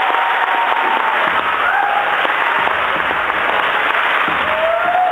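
Large concert audience applauding steadily, with whistles rising above the clapping.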